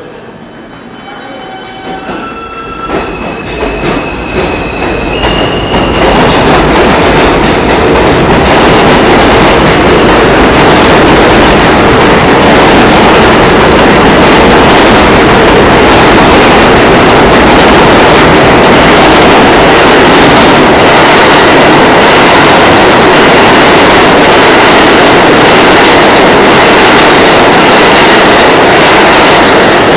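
R160 subway train pulling out of the station: its traction motors give a whine that climbs in steps over the first few seconds. It then builds into a loud steady rumble as the cars run past and out along the platform.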